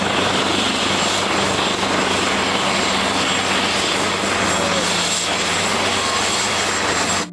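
Helicopter sound effect: steady engine and rotor noise that cuts in and cuts off abruptly.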